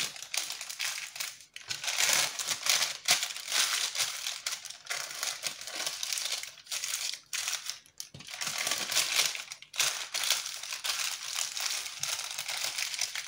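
Baking paper crinkling as it is folded over and pressed down on a block of soft turrón in a paper-lined carton mould, coming and going with short pauses.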